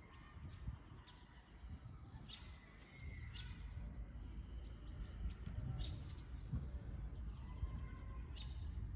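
Wild birds chirping and calling, short scattered chirps and brief whistled notes through the whole stretch, over a steady low background rumble.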